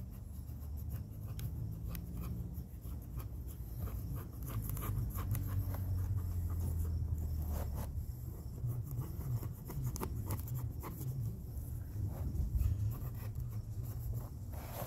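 Hand work at a bench: repeated scratching and rubbing strokes with small clicks, like a pen or tool drawn across a surface, over a steady low hum.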